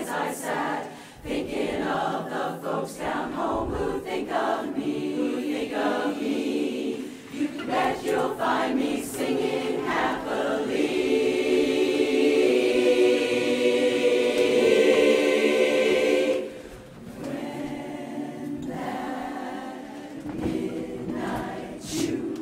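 Women's barbershop chorus singing a cappella in close harmony. It builds to a long, loud held chord that breaks off about sixteen seconds in, then carries on more softly.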